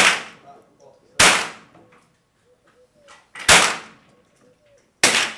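Browning Buck Mark .22 semi-automatic pistol firing four single shots, each a sharp crack with a short tail, spaced about one to two and a half seconds apart.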